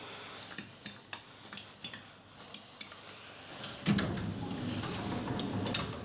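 Otis elevator car-panel push buttons clicking as they are pressed, about eight sharp clicks in the first three seconds. About four seconds in, a thump and then a louder rumbling noise for about two seconds.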